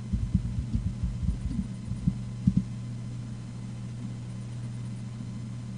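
Irregular, dull knocks of keyboard typing for about the first two and a half seconds, the last knock the loudest, over a steady low electrical hum that carries on alone afterwards.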